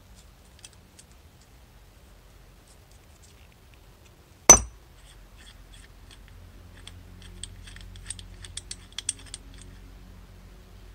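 A single sharp metallic tap about four and a half seconds in, then a run of light metal clicks later on. They come from a 6 mm socket on a small ratchet being tapped onto and worked against the cable retainer of a Mikuni carburetor's throttle slide.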